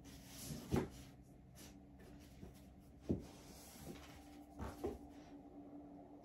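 Books being pulled off a wooden shelf and stacked in the arm: about four soft knocks, two of them close together near the end.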